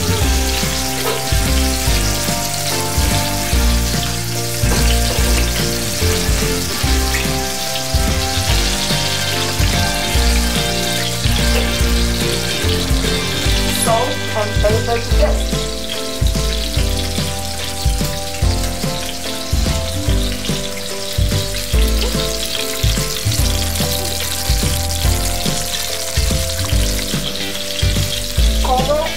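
Eggs and tomatoes sizzling as they fry in a pan, under background music with a steady bass line.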